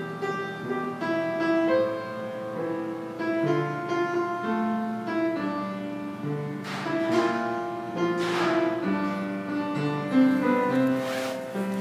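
Instrumental piano introduction to a slow song: notes and chords played in turn, with a few swishing swells near the middle and end.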